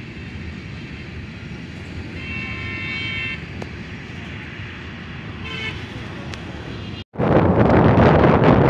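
Roadside traffic rumble, with a vehicle horn sounding for about a second a little after two seconds in and a short toot at about five and a half seconds. After a brief cut near the end, a much louder, even rushing noise takes over.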